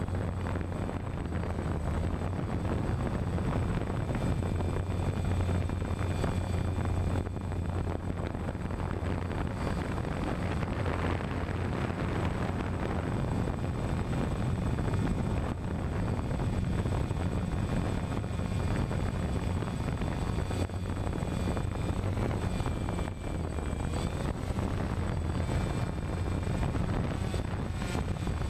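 DJI Phantom quadcopter's four electric motors and propellers buzzing steadily in a hover, heard from the GoPro mounted on it, with a thin whine that shifts slightly in pitch.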